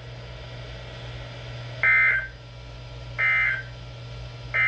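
Emergency Alert System end-of-message signal: short bursts of the SAME digital data code, which marks the close of a broadcast warning. Two bursts about 1.4 s apart, with a third starting at the very end, over a steady low hum.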